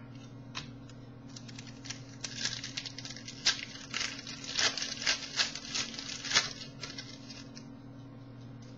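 Trading cards and a foil pack wrapper being handled: a run of quick, uneven crinkles and clicks as cards are shuffled. The crinkling starts about a second in and stops near the end.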